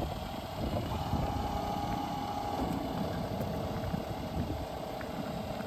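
Scania R450 truck's 13-litre six-cylinder diesel idling with a steady whine over it, while the rear truck-mounted crash attenuator is lowered hydraulically from raised to level.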